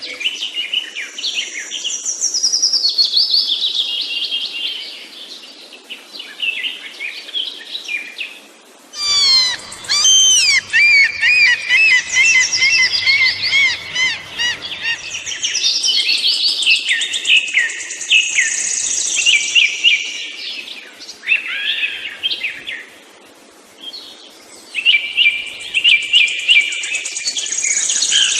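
Several songbirds singing at once in woodland, overlapping whistled phrases and rapid note series, louder from about nine seconds in.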